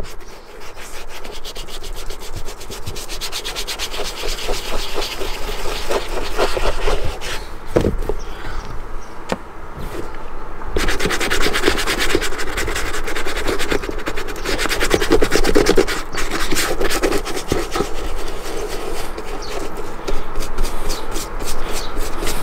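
Fingers and a cloth rubbing leather cream into the upper of a leather boot: continuous quick rubbing strokes on the leather, applying a second coat of cream. The rubbing gets brighter and brisker about halfway through.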